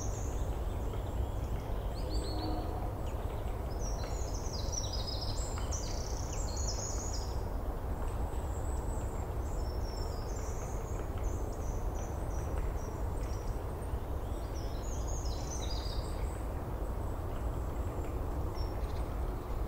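Small birds chirping and twittering in quick high phrases, in short spells every few seconds, over a steady low background rumble.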